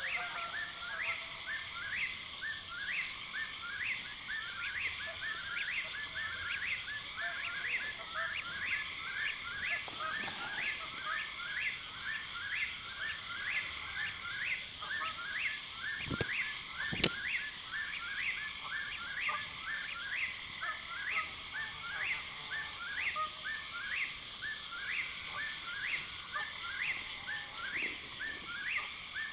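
Night-time chorus of calling animals by a lake: a steady high drone with many rapid, rhythmic chirping calls layered over it, a few per second. Two sharp clicks come near the middle.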